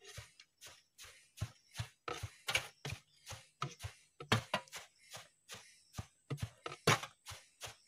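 Wooden pole pounding wood shavings down inside a steel drum: repeated short thumps, about three a second, packing the shavings tight around the central pipe before the drum is fired for charcoal.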